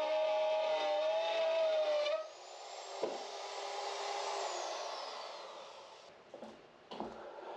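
Power tool running at a steady whine, then cutting into wood for a few seconds. Its pitch falls away as the cut ends.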